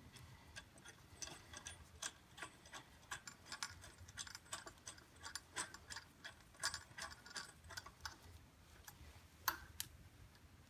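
Light, irregular clicking of a socket wrench, in bunches of several clicks a second with short pauses, as the drive variator's retaining bolt is run back in on a Hammerhead Mudhead buggy's belt drive.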